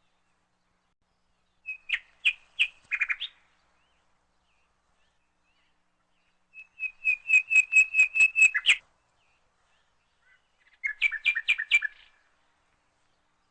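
Bird chirping in three short bursts of fast repeated high notes, the middle burst the longest, with silence between them.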